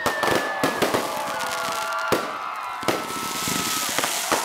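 Aerial fireworks going off in quick, irregular succession: sharp bangs of bursting shells over several long, steady whistles.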